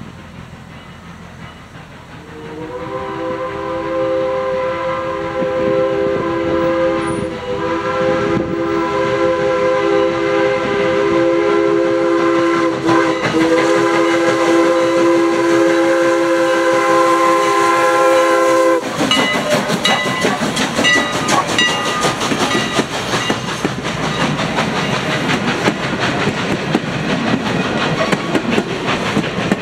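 Strasburg Rail Road No. 89, a 2-6-2 steam locomotive, blowing its steam whistle for the grade crossing in one long blast of about sixteen seconds, with two brief dips, that cuts off suddenly. The locomotive and its wooden passenger cars then pass close by with loud rail clatter, dotted with short high-pitched squeals.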